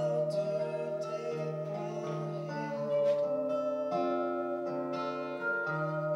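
Live acoustic guitars strumming and picking chords, with a long wavering sung note held over them.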